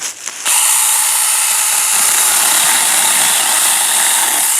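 Saker 4-inch cordless electric mini chainsaw running at full speed, its chain cutting through a small tree trunk about two inches thick. It starts about half a second in, runs steadily and stops abruptly near the end.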